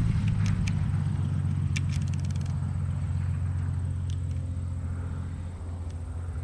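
Small propeller aircraft's engine running steadily, a low drone that slowly fades. A few faint clicks and a brief rattle come about two seconds in.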